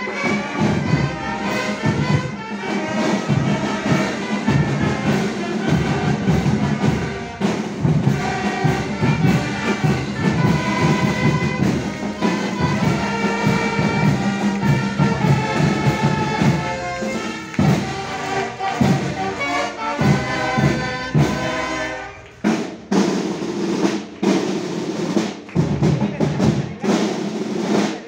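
Marching band playing live, brass instruments carrying a tune over snare and bass drums. About 22 seconds in the brass drops away and the drums carry on, striking a steady march beat.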